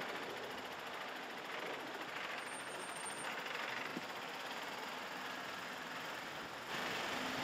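Mercedes-Benz Unimog U 4023's four-cylinder diesel running at low revs as the truck crawls over snow-covered rocks. Near the end a louder steady rush of running stream water comes in.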